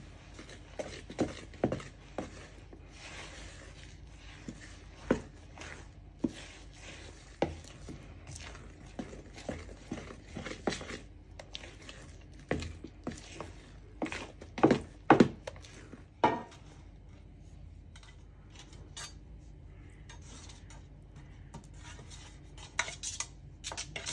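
A utensil stirring poppy seeds into thick cake batter by hand in a mixing bowl, with scraping and irregular knocks against the bowl. The knocks are loudest and come closest together a little past halfway.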